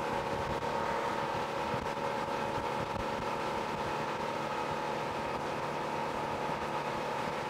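Mestra 240 speedboat's 250 hp sterndrive engine running steadily at about 4,500 RPM, the boat cruising at around 31 knots: a steady hum with an even rushing noise beneath it.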